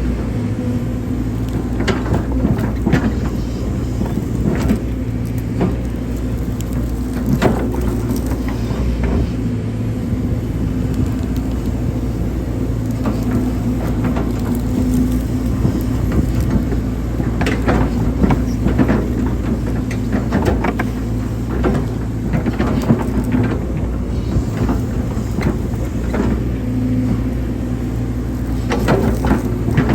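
Hydraulic excavator's diesel engine running steadily under working load while digging a ditch, with irregular knocks and clanks scattered through.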